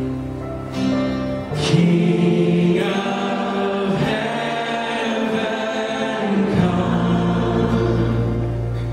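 Church worship band performing a song: several voices singing together over acoustic guitars and bass. The low bass notes drop out for about five seconds in the middle, then return.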